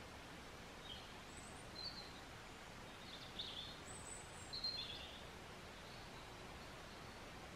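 Woodland birds giving a few short, faint chirps over a steady quiet background hiss, most of them in the first five seconds.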